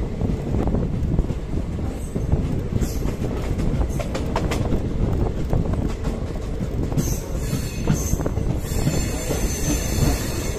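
Diesel multiple-unit passenger train running, with a continuous rumble and wheels clicking over rail joints. From about seven seconds in, a high-pitched metallic wheel squeal sets in and grows stronger near the end.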